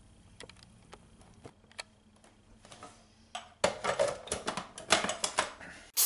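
Hard plastic clicking and clattering of a food processor's lid, bowl and pusher being handled and locked into place: a few light clicks at first, then a quick run of louder clacks in the second half. Right at the end the motor switches on with a sudden loud whir.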